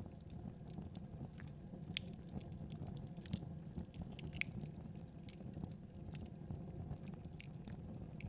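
Wood fire crackling: a steady low rumble of burning with scattered sharp pops, the loudest about three seconds in.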